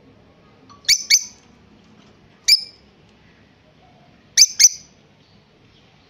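A pet parrot giving short, sharp, high chirps: a quick pair about a second in, a single one near the middle, and another quick pair a little later.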